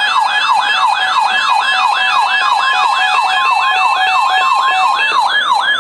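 Electronic alert siren for a severe thunderstorm warning, sounding rapid falling yelps a little over three times a second over steady interrupted beeping tones.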